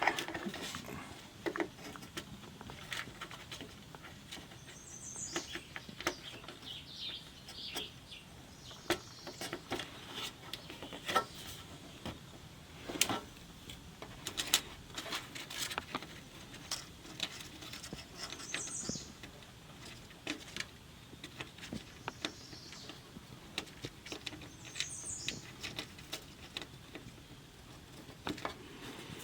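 Scattered small clicks and taps of hands working the plastic connector plugs and wire clips of a TV's LED backlight strips, with a few faint high chirps in between.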